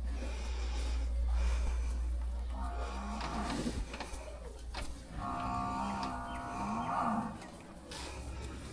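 Domestic water buffalo lowing twice: a short call about three seconds in, then a longer, wavering call of about two seconds.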